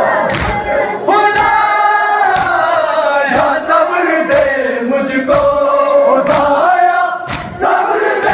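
A crowd of men chanting a noha together, with sharp rhythmic thuds about once a second from hands beating on chests in matam.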